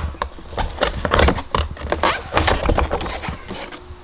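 Irregular clacks and rattles of pleated cabin air filters in their plastic holder being handled and turned over.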